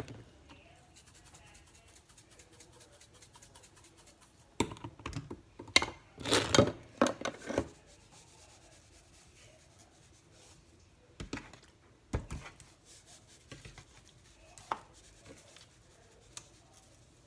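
Plastic seasoning shakers shaken over raw pork steaks on a plate, with hands handling the jars and meat. A run of quick light ticks comes first, then a cluster of louder clatters and knocks about five seconds in, and later scattered knocks and clicks.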